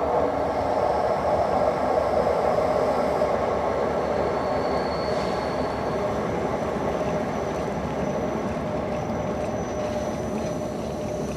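ÖBB Intercity push-pull train running on wet rails, a steady rolling rumble with thin high-pitched wheel squeals coming and going over it, one briefly about five seconds in and another setting in about seven seconds in. The squealing is typical of slipping wheels on the slippery rails.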